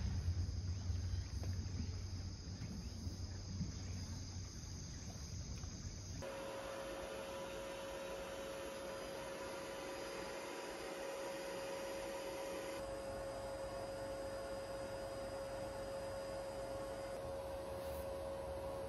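Insects chirring steadily over a low rumble, then after about six seconds an abrupt change to a steady hum with one held tone.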